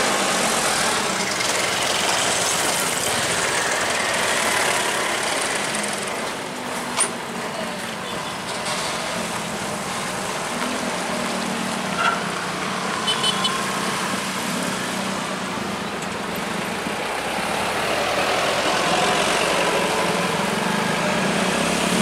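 Container truck (tractor unit pulling a loaded 40-ft box trailer) running past at low speed and pulling away, its diesel engine hum fading a little midway. There are a few short sharp clicks in the middle, and the traffic noise swells again near the end.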